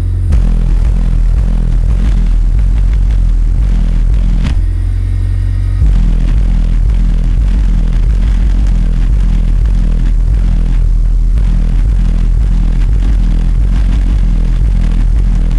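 Two 12-inch Ground Zero car subwoofers playing bass-heavy music very loud, with deep bass dominating. About four and a half seconds in, everything above the deep bass drops out for over a second, then returns.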